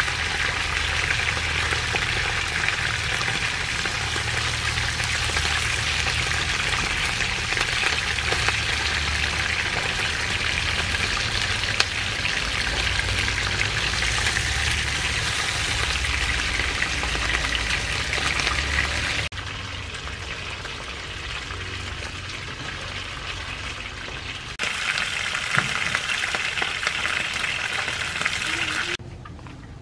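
Fish pieces sizzling as they fry in hot oil in a pan: a steady frying hiss that drops for a few seconds about two-thirds of the way through, then comes back.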